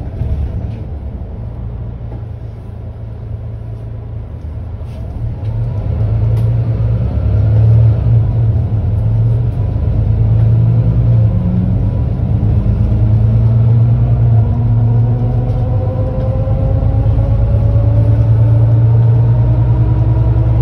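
Mercedes-Benz Citaro C2 G articulated bus idling at a standstill: a steady low diesel hum that grows louder about a third of the way in, with a faint whine rising slowly in pitch through the second half.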